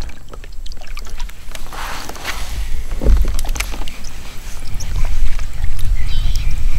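Wind rumbling on the microphone over water sounds around a paddled kayak. Near the end comes one short buzzy, kazoo-like bird call.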